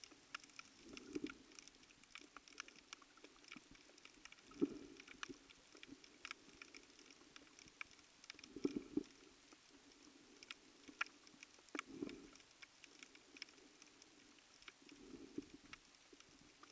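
Faint underwater sound: scattered sharp clicks and crackles throughout, with a low rush about every three to four seconds, the rhythm of a scuba diver breathing out through the regulator.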